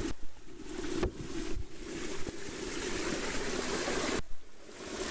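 Spring water running and splashing as a phone is dipped in and out of the flow, with a few sharp knocks and a brief drop in the rush about four seconds in.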